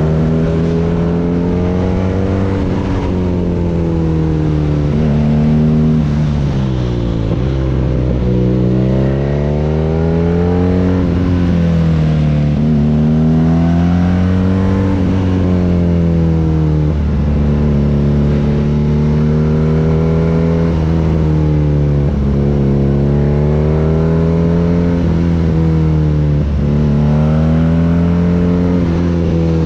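BMW R nineT's boxer twin running through an Akrapovic exhaust under way: the engine note climbs with speed and drops sharply at each gear change, several times over, with one dip and climb from slowing down and pulling away again about seven seconds in.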